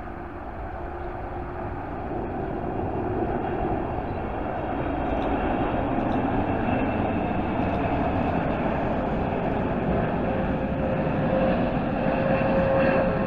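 Boeing 777-300ER's twin GE90 jet engines on landing approach: a steady jet rumble that grows louder as the aircraft nears. A whining tone comes in about ten seconds in and starts to drop slightly in pitch at the very end as the jet passes.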